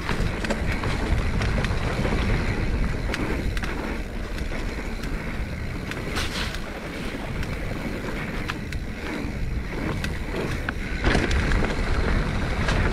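Mountain bike descending a dirt trail at speed: wind buffeting the camera microphone and tires rolling over the ground, with frequent sharp clicks and rattles from the bike over rough terrain, loudest about six seconds in and again near the end.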